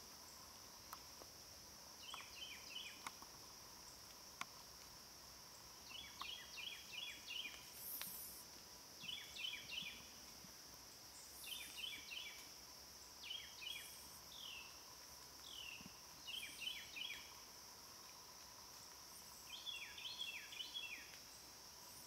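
A songbird singing short phrases of three to five quick, falling chirps, repeated every second or two, over a steady high drone of summer insects in the woods.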